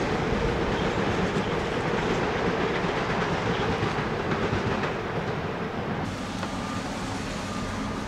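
Long Island Rail Road commuter train rolling past on the tracks, its sound slowly fading as it draws away. From about six seconds in, faint short repeated beeps of a reversing alarm sound from the construction machinery.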